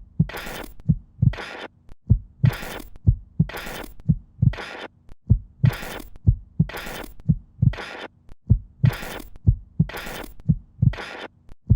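A rhythmic heartbeat-like pulse of deep double thumps, alternating with short hissing bursts about one and a half times a second, over a faint steady hum, in a repeating electronic pattern.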